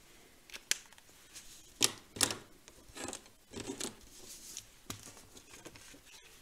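Nuvo gold marker pen drawn along the edge of a card, with a few sharp clicks and short scratchy rustles of pens and card being handled.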